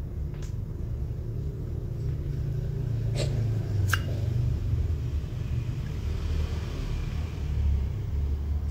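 Low steady rumble with three faint short clicks, about half a second, three seconds and four seconds in.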